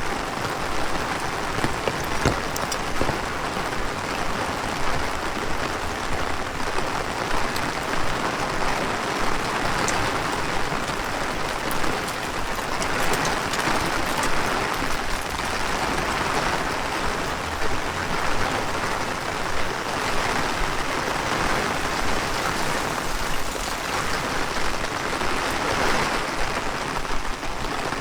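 Heavy rain hissing steadily, swelling and easing every few seconds.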